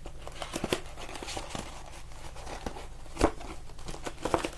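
Plastic wrapping crinkling and tearing, with small clicks and knocks of cardboard, as sealed trading-card boxes are handled and opened. There is one sharp snap about three seconds in.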